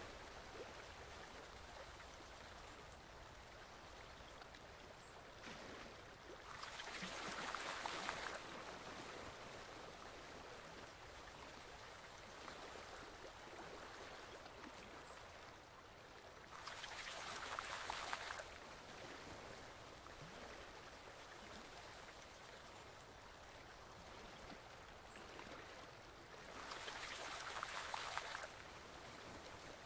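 Forest stream flowing steadily. About every ten seconds the water swells to a louder rush lasting about two seconds: three times, at about 7, 17 and 27 seconds in.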